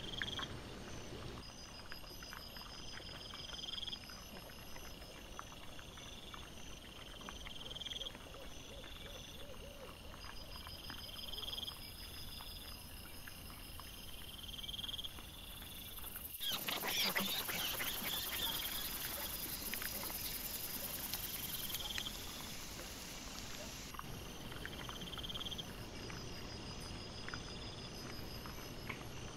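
Night insects chirping in a repeating pattern, about once every two seconds, heard through a trail camera's microphone with the footage sped up, over scattered small clicks and rustles from the boar. A louder stretch of crackling and rustling comes a little past the middle.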